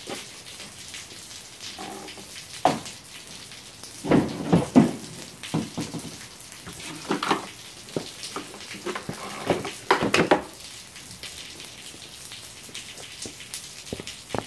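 Heavy rain pouring down steadily just outside an open garage. Louder short noises stand out over it about four to five seconds in, again about seven seconds in and about ten seconds in.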